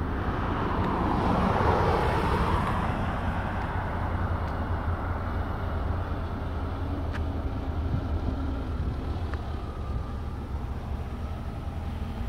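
A light single-engine propeller airplane flying over. Its engine drone is loudest about two seconds in and drops in pitch as the plane passes, then settles into a steadier, fainter drone.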